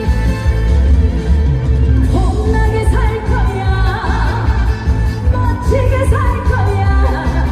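Live trot song over a stage PA: full band backing with heavy bass, and a woman's voice singing a wavering, vibrato-laden melody from about two seconds in.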